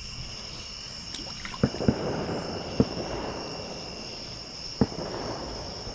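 Night insects, likely crickets, keeping up a steady high-pitched chorus, with four sharp knocks about two, three and five seconds in.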